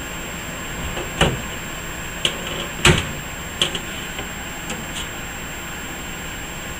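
A handful of sharp clicks and knocks of computer parts being handled and seated on a motherboard, over a steady hiss; the loudest click comes about three seconds in.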